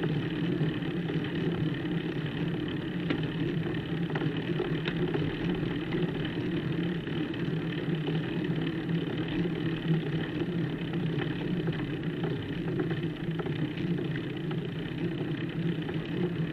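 Steady low rumble with a faint hum, the road and ride noise picked up by a bike-mounted camera on a slow, steep climb on tarmac.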